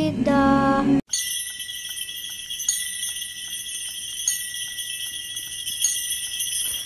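A sung line from the musical's playback soundtrack ends abruptly about a second in. It is followed by a steady high jingling of bells with one thin held tone beneath it.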